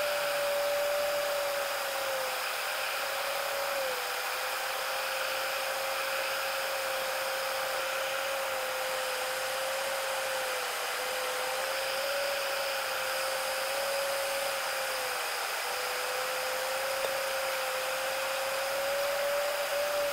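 Airliner cabin noise played back at ten times speed: a steady high hiss with one wavering whine running through it, and none of the usual low rumble.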